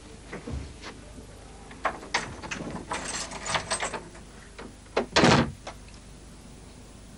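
Wardrobe doors and their contents being handled: a run of clicks and rattles, then a single louder bang about five seconds in.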